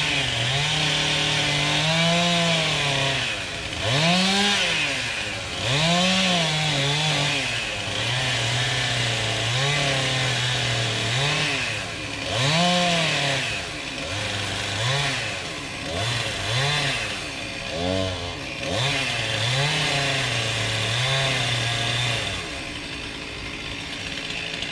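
Chainsaw cutting into the tree, its engine revving up and dropping back over and over, roughly every two seconds, as the throttle is opened and eased through the cut.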